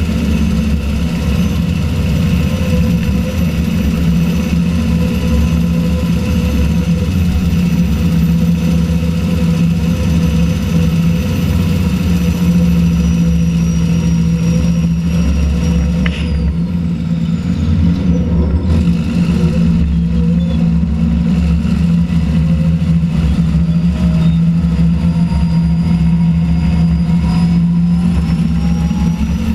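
Allis-Chalmers HD-21 crawler dozer's diesel engine running steadily and loud, heard from the operator's seat as the crawler moves along.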